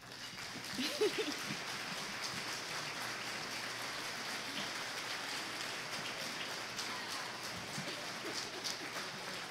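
Audience applauding: a dense, even patter of many hands clapping that builds up over the first second and then holds steady.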